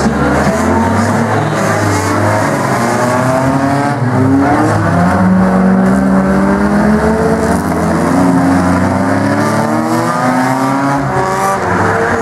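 Several compact figure-eight race cars' engines running hard together. Their overlapping pitches rise and fall as the cars accelerate and lift around the track.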